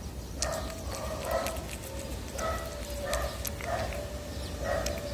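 Tabby cat eating wet cat food right at the microphone: wet chewing, smacking and licking in an uneven rhythm of roughly one or two mouthfuls a second.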